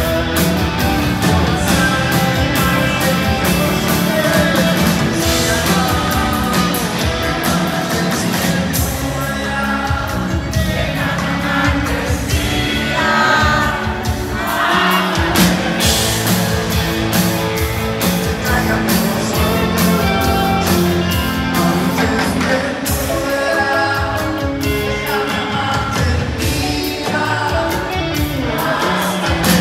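Rock band playing live, with electric guitars, drum kit, bass, keyboards and a lead vocalist singing in Spanish, heard from within the concert audience.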